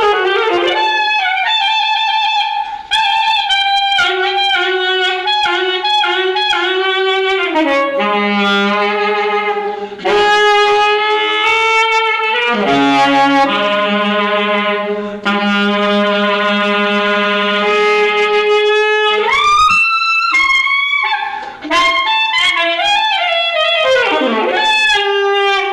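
Saxophone playing a passage of short notes, then long held tones in the middle with a second, lower tone sounding beneath them, then more short notes.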